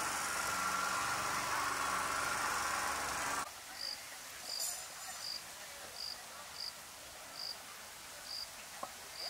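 A steady outdoor din with a low hum cuts off abruptly about three and a half seconds in. It gives way to quieter open-air ambience in which an insect chirps in short, high pips, a little more than one a second.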